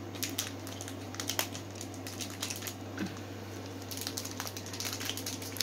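Clear plastic hard-candy wrappers being twisted open by hand: scattered small crackles and clicks, over a steady low hum.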